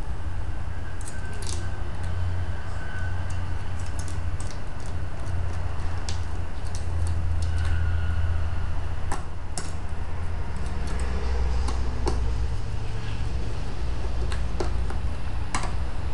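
Scattered small clicks and taps of a hand screwdriver and metal screws as the top plate screws of a Fleck 5600 control valve are driven down, over a steady low hum.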